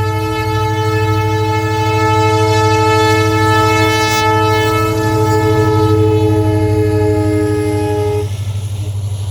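WDP4 diesel locomotive's multi-note air horn sounding one long, loud blast that cuts off about eight seconds in. The locomotive's EMD diesel engine runs with a steady low rumble underneath.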